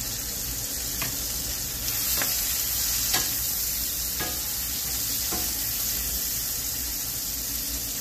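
Peppers, onions and mushrooms sizzling in butter in a cast-iron skillet, with a steady hiss. A wooden spatula stirs them and knocks against the pan about five times.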